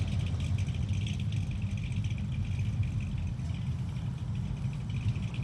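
A car's engine running with a low, steady rumble as a car drives out at low speed.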